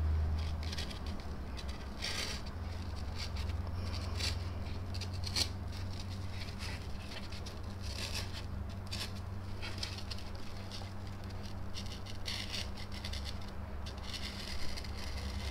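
Pencil scratching lightly around the edge of a paper template onto polyurethane foam, in short irregular strokes, over a low steady hum.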